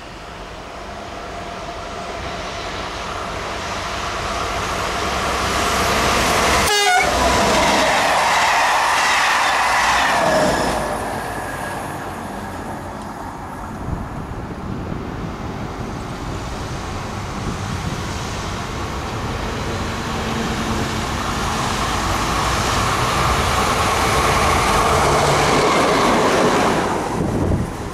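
A BB22200 electric locomotive with coaches passes at speed. Tones falling in pitch are heard as it goes by, matching a horn. Then a Vossloh G1206 and a G1000 BB diesel-hydraulic locomotive pass close by, their engines growing louder to a peak near the end.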